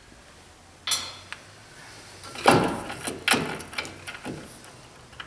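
Hand tools clicking and clattering on metal as the castle nut on a front wheel spindle is loosened and taken off, in a few irregular clanks.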